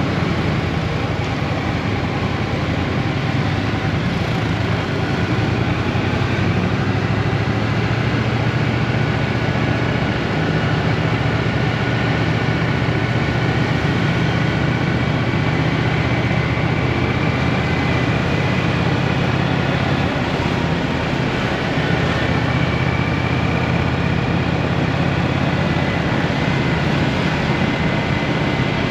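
Triumph Bonneville T120 parallel-twin motorcycle engine running at a steady cruise, mixed with steady wind and road noise.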